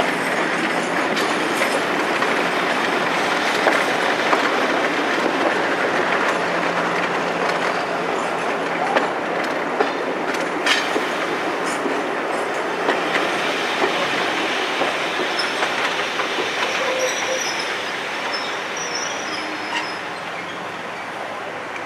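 Passenger coach wheels running on the track, heard from an open coach window, with rail-joint clicks and a few faint high wheel squeals in the second half. The running gets quieter over the last few seconds as the train slows alongside the platform.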